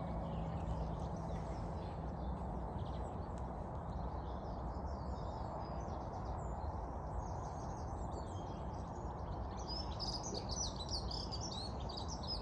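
Small birds chirping and singing outdoors, the calls growing busier near the end, over a steady low outdoor hum.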